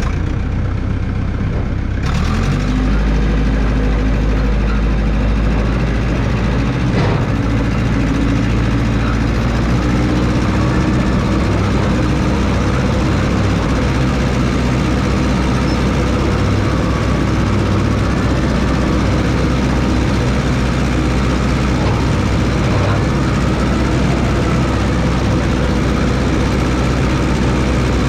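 Engine of a 1969 Massey Ferguson 300 crawler dozer running steadily while grading. It picks up speed and gets louder about two seconds in, with one short knock a few seconds later.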